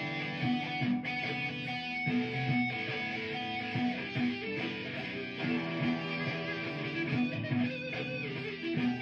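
Electric guitar played through effects pedals and an amplifier, improvising a solo over a looped guitar part that repeats underneath.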